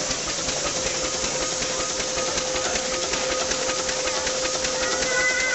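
Showman's steam road locomotive running: a steady hiss of steam over a fast, even clatter from its moving motion work, with a steady hum underneath.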